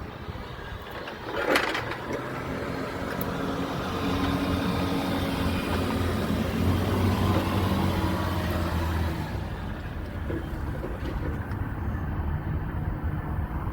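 Heavy truck engine running nearby, its low drone swelling for several seconds and then easing off, with a single metallic knock about a second and a half in.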